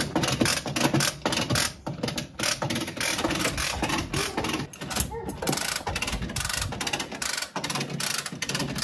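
Rapid, uneven metallic clicking of a ratchet mechanism, as a hand chain hoist (chain fall) is worked to move a heavy tractor. A faint voice comes in briefly about halfway through.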